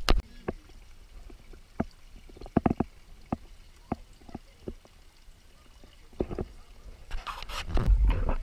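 Irregular knocks and clanks of hands and shoes on the rungs and rails of an iron ladder being climbed, a few close together about two and a half seconds in. Near the end a rush of wind and handling noise on the action camera's microphone comes up.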